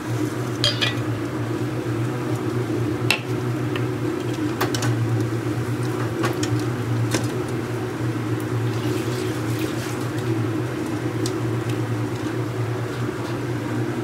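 Stainless-steel bowls, plates and a slotted spoon clinking and knocking a few times against the counter and each other, over a steady low hum.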